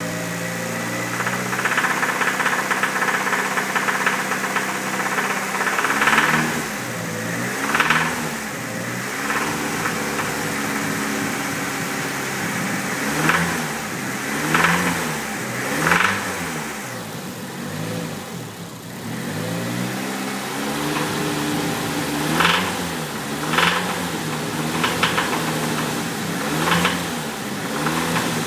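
Nissan SR20DET turbocharged 2.0-litre four-cylinder engine running, steady for the first few seconds, then revved in about ten short blips. It has a bottom-end knock, which the owner puts down to number 2 cylinder.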